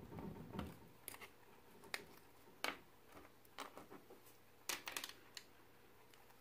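A scattering of small, sharp clicks and taps as the chrome base and parts of a small diecast toy car are handled with fingers and a thin metal pick, over faint room tone.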